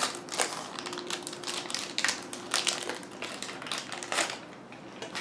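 Foil wrapper of an Instax Wide film pack crinkling as it is opened and the black film cartridge is slid out, a quick run of crackles that dies down about four seconds in.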